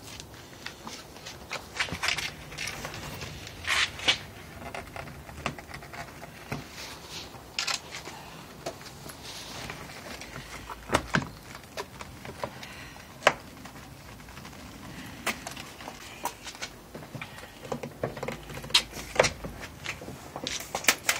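Hands working the plastic door trim around a car's side-mirror mount: irregular clicks, taps and rubbing, with a few sharper knocks.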